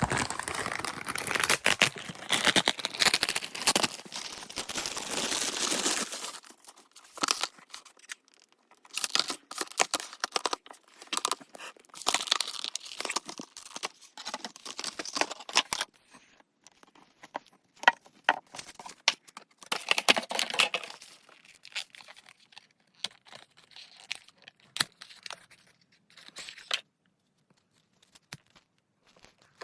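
Packaging being torn open and crinkled while a small speaker is unboxed. There is continuous tearing and rustling for the first several seconds, then bursts of rustling and sharp clicks on and off, dying away near the end.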